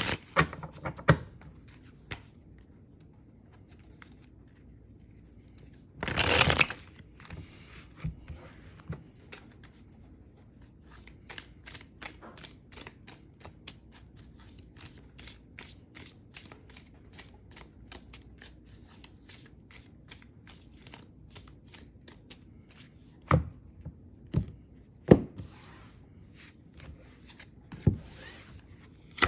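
Tarot cards being shuffled by hand: a long run of quick, light card flicks, with a louder burst about six seconds in and a few sharp taps near the end.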